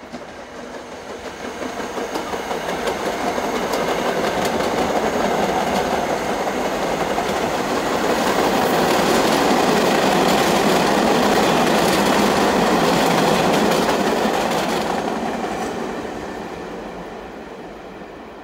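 An NYC subway train of R68/R68A cars passes through the station without stopping. Its running noise builds to a peak at about the middle, with the wheels clicking over the rail joints as the cars go by, then fades away.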